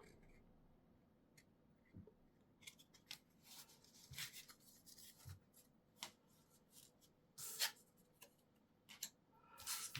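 Faint, scattered soft clicks and rustles of Pokémon trading cards and a foil booster pack being handled.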